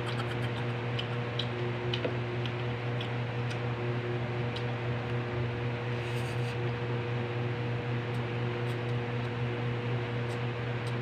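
A steady low motor hum runs under faint, scattered clicks of a man eating rice by hand from a plate. There is a brief mouth sound about six seconds in, as he takes a handful of food.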